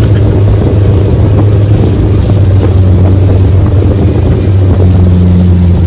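A boat's engine running steadily at cruising speed under a loud, constant low hum, with wind buffeting the microphone.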